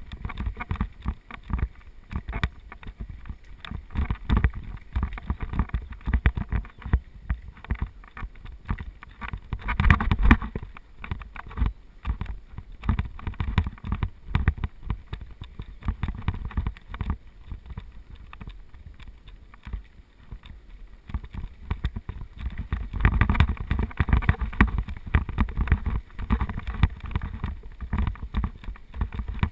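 Mountain bike rolling fast downhill on a rough dirt track: tyres on loose ground and the bike and camera rattling with constant knocks over the bumps, over a low rumble. It gets rougher and louder about ten seconds in and again from about twenty-three seconds.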